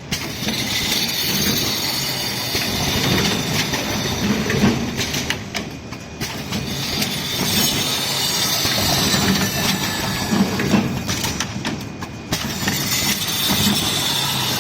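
Automatic towel cross-stitch sewing machine running, its needle stitching fast with a steady mechanical rattle. It briefly eases off about five and eleven seconds in, then picks up again.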